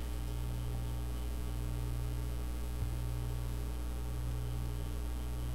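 Steady electrical mains hum with a light hiss, and one faint click near the middle.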